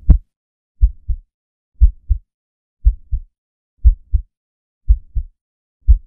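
Heartbeat sound effect: slow, steady double thumps, a pair of low beats about once a second, with silence between them.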